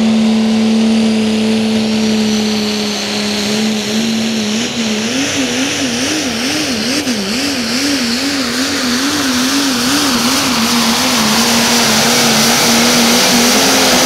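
Pro stock diesel pulling truck, a Dodge Ram 2500, at full power pulling the sled. The engine note holds steady, then swings up and down in pitch for several seconds in the middle, and steadies again before dropping sharply at the very end as the throttle comes off.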